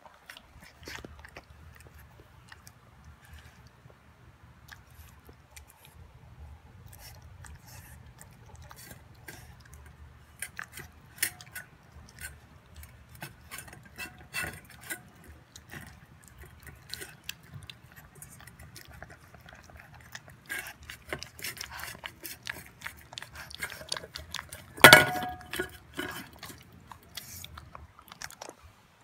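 Boston Terrier puppy chewing and biting raw beef and vegetables from a stainless steel bowl, a run of small wet clicks and crunches. Near the end comes one loud clang of the steel bowl, ringing briefly.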